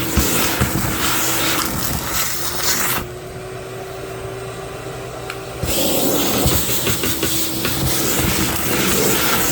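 Shop-Vac wet/dry vacuum running with a steady motor hum and rushing air, plus scattered clicks and knocks. About three seconds in, the rush of air drops out and the motor note rises slightly for a couple of seconds, as when the nozzle is closed off against a surface. Then the full suction noise returns.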